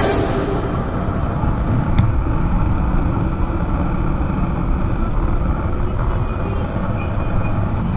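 Bajaj Pulsar motorcycle engine running among street traffic, heard from a camera on the bike as a steady low rumble, with a faint click about two seconds in.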